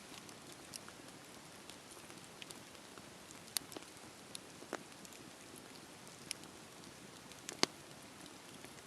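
Wood fire crackling: a steady low hiss with scattered sharp pops, the loudest about seven and a half seconds in.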